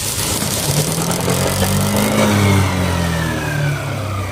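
Yamaha NMAX 160 scooter's single-cylinder engine revved once, its pitch rising for about a second and a half and then falling back to idle. The scooter has a noise that is put down to the magneto.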